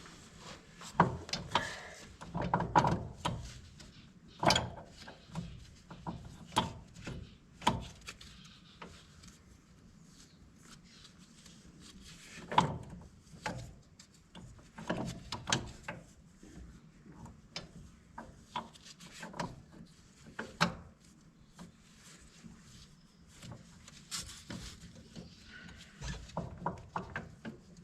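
Irregular clicks, knocks and scraping of hand tools and parts being worked on a corn planter's wheel hub, with a few sharper knocks among softer handling sounds.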